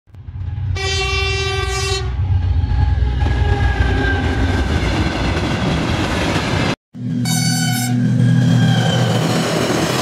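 Steam train sound effect: a train running on rails with a steady rumble, and a whistle blast of about a second, starting about a second in. Just before seven seconds it cuts out abruptly and restarts as an edited variation, with a short whistle toot over a heavier, lower hum.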